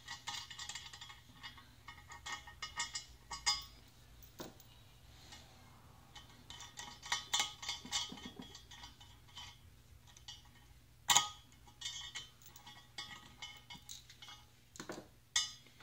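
Small metal clinks and clicks of a nut, washer and 3/8 bolt being undone and handled against an aluminium intake manifold as the gasket held on it is taken off, with a few sharper knocks, the loudest about eleven seconds in.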